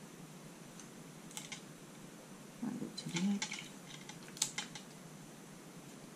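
Hands handling card and paper: a few light taps, clicks and paper rustles as a printed sentiment strip is positioned and pressed onto the card front, the sharpest tap about four and a half seconds in.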